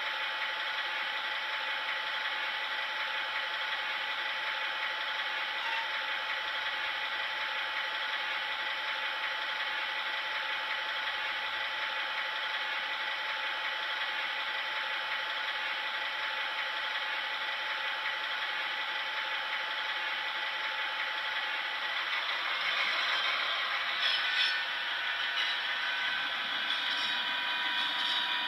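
Sampled diesel locomotive engine sound from an ESU LokSound decoder, played through the small speaker of an H0 model of an FS D445 locomotive. It runs steadily with almost no bass, then about 23 seconds in it grows louder and its pitch changes.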